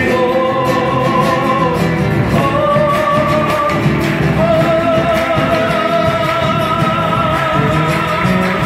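Live Latin American folk song: acoustic guitars strumming under a voice holding long sung notes, two shorter ones and then one held for about five seconds, amplified through a hall PA.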